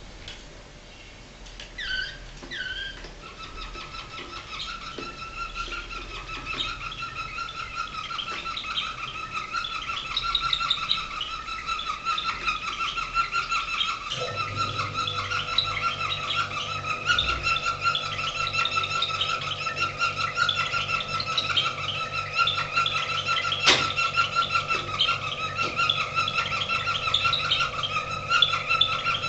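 Domestic canary singing one long unbroken song: a steady whistled note held under fast trills and chirps above it. A low steady hum comes in about halfway through.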